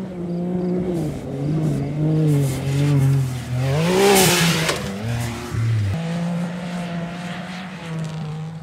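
Can-Am Maverick X3 side-by-side's engine revving up and down as it is driven hard around a motocross track, with a loud rush of noise about four seconds in as it launches off a jump. After about six seconds the engine holds a steadier note.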